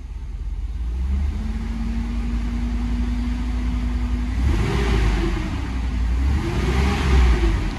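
2004 Chevy Tahoe's 5.3L LM7 V8 running at a steady idle, then revved twice in the last few seconds, each rev rising and falling back.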